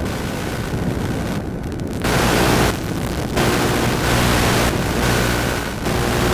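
Loud, steady rushing noise with no clear pitch, shifting abruptly in tone and level every second or so, with a faint steady whine underneath.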